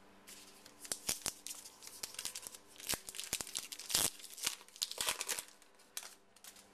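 Foil trading-card pack wrapper crinkling and tearing open, with a run of sharp crackles and snaps from about a second in that dies away near the end.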